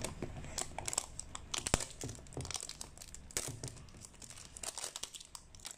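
Clear plastic shrink wrap on a toy capsule crinkling and tearing as hands pick at it and peel it off, in irregular crackles and clicks.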